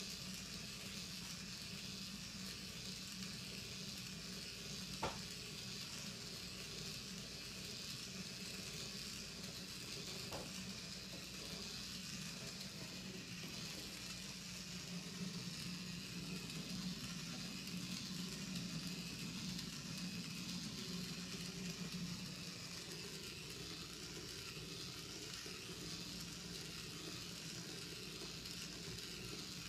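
Steady hiss with a low hum underneath, and two faint clicks about five and ten seconds in.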